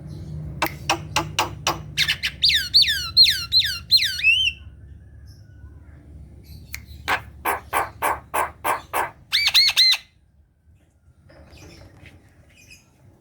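Javan myna singing a varied song. It opens with a run of sharp clicking notes, then a string of falling whistles, then a series of harsh squawking notes and a quick burst of high whistled notes, and stops about ten seconds in.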